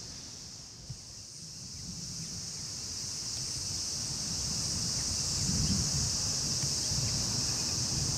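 Steady high-pitched buzzing of insects in summer grass, with wind buffeting the microphone as a low rumble that grows louder and gustier about halfway through.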